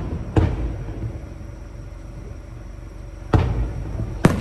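Aerial fireworks shells bursting: one sharp boom early on, then two more close together near the end, each trailing off in a rolling echo.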